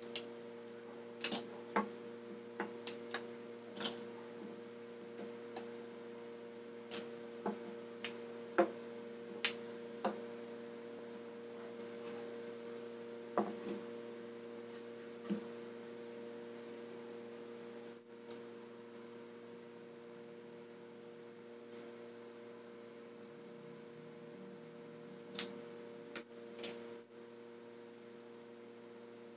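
Scattered sharp clicks and knocks as wooden workpieces and tools are handled and set down on a wooden workbench, many in the first half and a few more near the end, over a steady hum.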